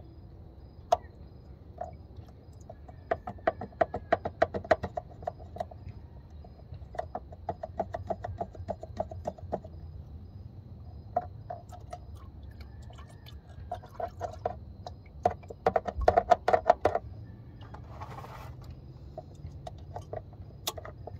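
Ratchet wrench clicking rapidly in short runs of a second or two, several times over, as it backs out the bolt holding the automatic transmission's filter.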